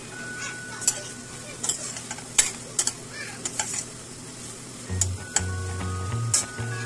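Chicken pieces with onion and tomato sizzling in a stainless steel pan while a metal slotted spoon stirs them, with sharp clinks and scrapes of the spoon against the pan.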